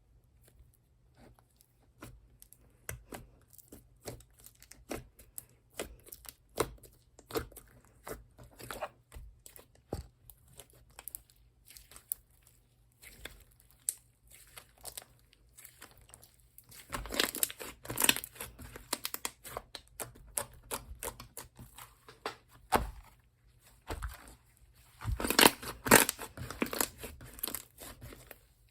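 Hands squishing and stretching slime, making a run of sharp sticky pops and crackles that thicken into dense bursts past the middle and again, loudest, near the end.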